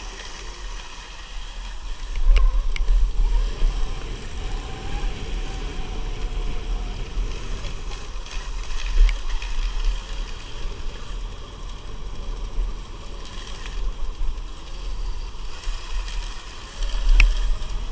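Riding noise from a 2020 Sur-Ron electric dirt bike on a dirt trail: a gusty low rumble of wind buffeting the microphone, with a faint electric motor whine rising and falling. A few sharp clicks or knocks come through, about two seconds in and near the end.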